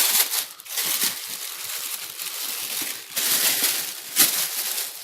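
Plastic shipping bag crinkling and rustling as it is torn open and handled, with a sharp crackle about four seconds in.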